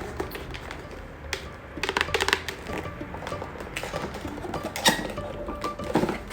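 Packaging being handled and unwrapped: irregular clicks and crackles, with a cluster about two seconds in and the sharpest click near five seconds, over light background music.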